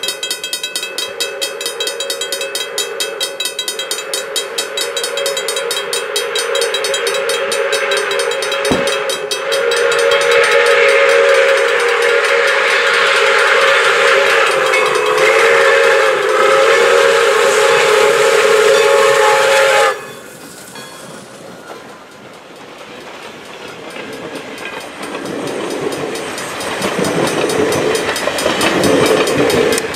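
Pere Marquette 1225, a 2-8-4 Berkshire steam locomotive, blowing its steam whistle in long, drawn-out blasts on approach to a grade crossing, over the crossing bell ringing rapidly. Both stop abruptly about two-thirds of the way through, and then the rumble and clatter of the passenger cars rolling over the crossing grows louder.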